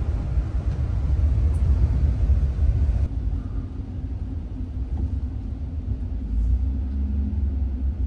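Steady low rumble of engine and tyre noise inside the cab of a Ram ProMaster camper van driving on a wet, slushy highway. The higher hiss above the rumble drops away suddenly about three seconds in.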